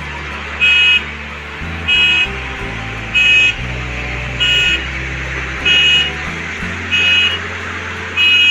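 Reversing alarm on construction machinery beeping steadily: short, high beeps about every second and a quarter, with music underneath.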